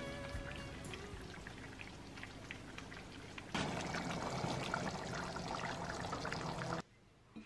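Braised pork simmering in its sauce in a pot, a steady bubbling hiss full of small pops. It gets louder about three and a half seconds in and cuts off suddenly near the end.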